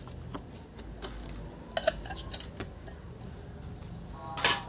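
Light plastic clicks and taps as the parts of a round LED panel light are lifted and set down during disassembly, with a sharper knock near the end.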